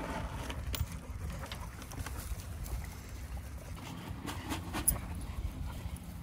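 A pack of dogs milling about and panting, with scattered clicks and taps over a steady low rumble; the sharpest tap comes about five seconds in.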